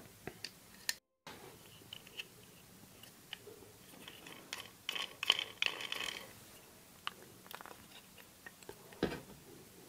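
Small plastic Magnorail parts being handled and pushed together: scattered light clicks and crackles, busiest about five to six seconds in.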